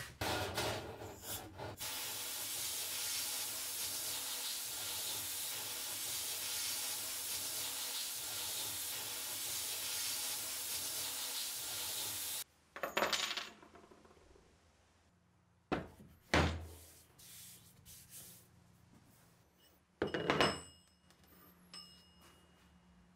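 Steel nuts clink onto a perforated metal grate, then an abrasive blast nozzle hisses steadily for about ten seconds, stripping rust from a nut, and cuts off suddenly. Afterwards come a few separate knocks and clinks of metal parts, one of them ringing.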